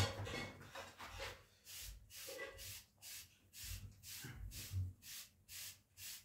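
Soft hairbrush swept repeatedly through short, close-cropped waves hair, a quick regular swish of bristles about three times a second, starting about a second and a half in.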